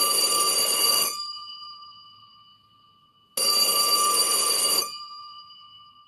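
Vintage 1940s telephone bell ringing in two rings about three seconds apart, each about a second and a half long. The gongs keep ringing and fade away after each ring.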